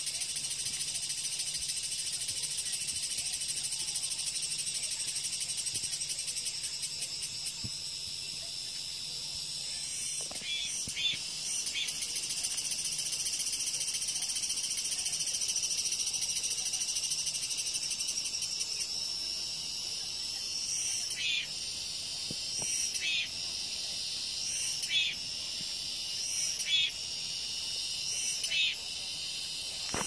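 Cicadas singing in a high-pitched, pulsing buzz. After about twenty seconds the drone eases off, and short, sharp calls repeat roughly every two seconds.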